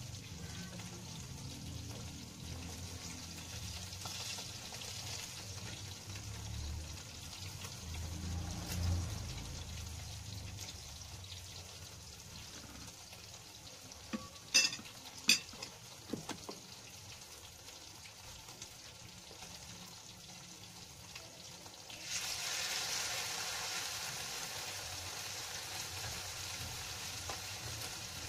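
Hot cooking oil sizzling steadily in a frying pan. A few sharp clicks come about halfway through, and the sizzle grows louder and brighter about three-quarters of the way in.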